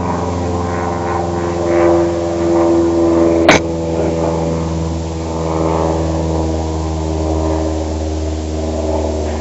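Steady low mechanical hum, like a motor running, with one sharp crack about three and a half seconds in.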